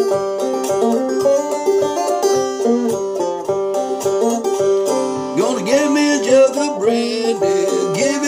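Homemade banjo with a frying-pan body and a groundhog-hide head, played in a rhythmic run of plucked notes. A man's voice comes in over it about five seconds in.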